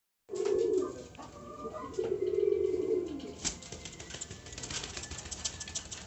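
Domestic pigeons cooing twice, the second coo longer and dropping in pitch as it ends. From about halfway in comes a fast run of flutters and clicks as a pigeon flaps its wings in the wire cage.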